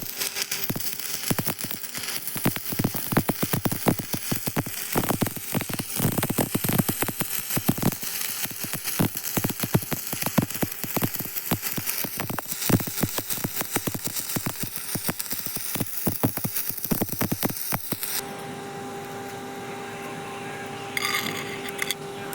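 Electric arc welding: a dense, irregular crackle and spatter that runs for about eighteen seconds, then stops. After it a steady, quieter hum with a steady tone remains.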